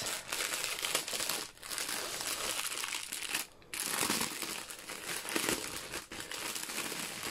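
Crinkling of a clear plastic bag holding a bundle of diamond-painting drill packets as it is handled and turned over, with a few brief pauses.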